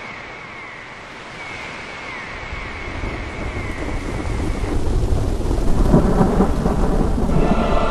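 Thunderstorm: rain hiss with a low rumble of thunder that builds from about three seconds in, loudest near the end.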